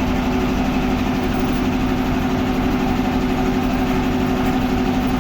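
Sawmill machinery running steadily: an even, constant-pitched mechanical hum that neither rises nor falls.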